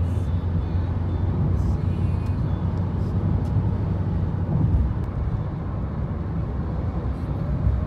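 Steady low rumble of a car on the move, heard from inside the cabin, with a few faint clicks.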